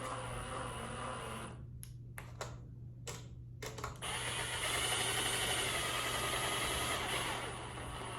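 Milwaukee Surge hydraulic impact driver running a long screw down into a plastic data box, with a louder steady run from about 4 s to about 7.5 s over a constant low hum.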